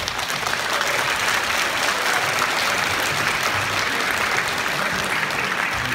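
Audience applauding, a dense and steady clapping throughout.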